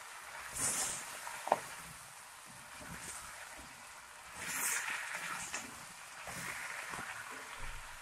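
Desi chicken pieces sizzling in oil in a stainless-steel pot while being stirred with a silicone spatula. The sizzle swells twice as the pieces are turned, and there is one sharp tap about a second and a half in.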